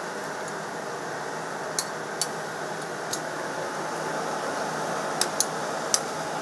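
Stainless steel tongs clicking against a steel tray and wire mesh as slices of marinated jerky meat are laid out: about six sharp clicks, three in quick succession near the end. Under them runs a steady fan-like whir.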